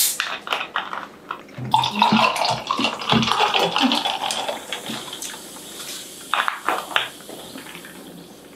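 A plastic bottle of Narangd cider, a fizzy soda, is cracked open with a short sharp hiss, then poured over ice into a glass mug, glugging and fizzing. A few sharp knocks come about six and a half seconds in, and a soft fizz trails off at the end.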